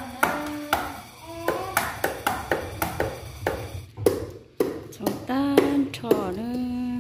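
Knife chopping herb stems on a wooden chopping block: a run of sharp knocks, about two to three a second, for the first four seconds. In the last two seconds a person's voice.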